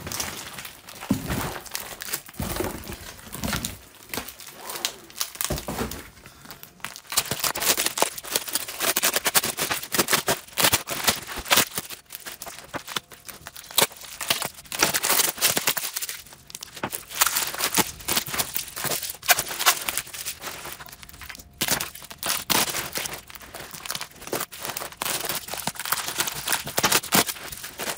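Plastic packaging and packing tape crinkling, rustling and tearing as hands pull a parcel open, in an irregular run of crackles.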